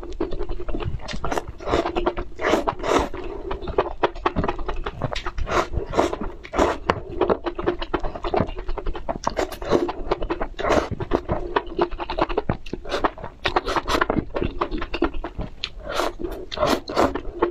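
Close-miked eating: wet chewing, mouth smacks and slurping of strands of sauced food, mixed with a metal fork scraping and tapping on the serving tray. Irregular sharp clicks and smacks come several times a second throughout.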